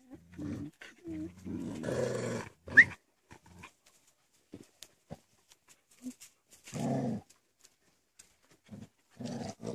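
Dogs growling in rough play over a rope tug toy, with a short, sharp, rising yelp about three seconds in, the loudest sound, and a few more short growls or barks later on.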